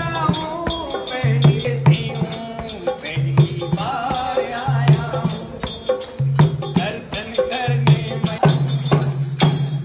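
Hindu devotional bhajan kirtan: a group sings a call-and-response hymn over hand-drum strokes and jingling percussion that keep a steady beat.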